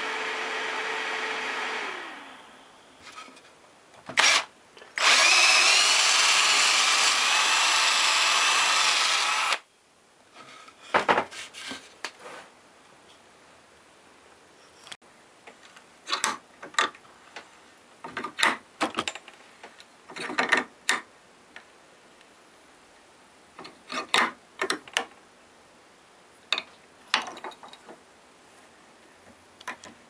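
Homemade reed switch motor running: a steady hum fades away about two seconds in, a loud rough whirring with wavering pitch follows for about four seconds and stops abruptly, then the rotor gives short irregular clicking bursts every second or two.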